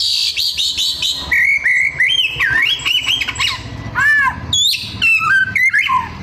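Oriental magpie-robin (kacer) singing a loud, varied song: a quick run of repeated high notes, then gliding whistles and arched chirps, a mix that includes mimicked phrases of other birds.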